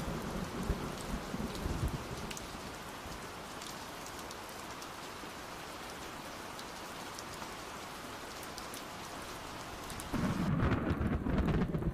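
Steady rain falling, with scattered drips and drops ticking through it. About ten seconds in, a heavier low rumble of thunder swells up.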